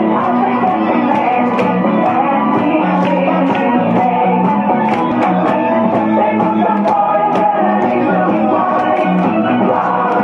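Loud music with a steady beat playing over a loudspeaker system.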